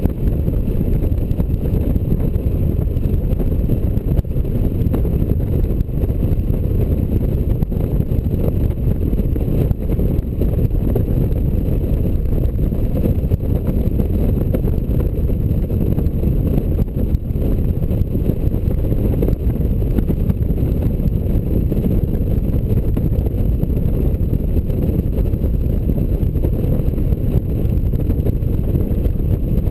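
Steady low wind rush and rumble of a Honda Gold Wing touring motorcycle riding at an even cruising speed, heard from a camera mounted behind its windscreen.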